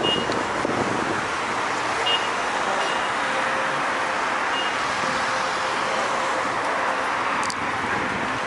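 Steady city street traffic noise: the running of cars on the road alongside.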